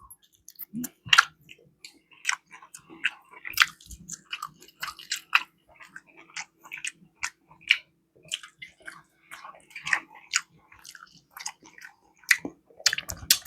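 A person chewing and smacking food with the mouth: irregular wet clicks and smacks, over a faint steady hum.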